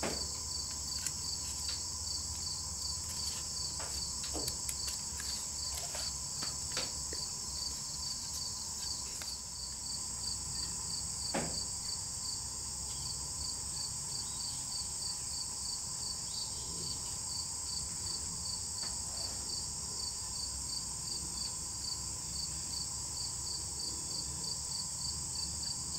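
Insects singing in a steady high-pitched chorus, with a regular chirp about three times a second. A few light clicks and taps in the first several seconds and one more about eleven seconds in.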